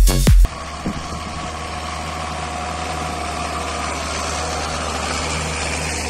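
John Deere 6620 tractor's six-cylinder diesel engine running steadily under load while pulling a Lemken Opal reversible plough through the soil. Loud electronic dance music cuts off abruptly about half a second in.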